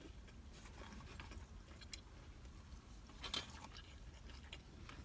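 Faint chewing and mouth sounds of a person eating, with a few small clicks; the clearest, a short smack, comes a little past three seconds in.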